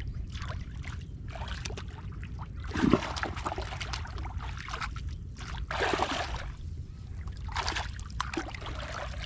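Shallow muddy water splashing and sloshing as hands grope through it for fish, in irregular bursts, the loudest about three and six seconds in, over a steady low rumble.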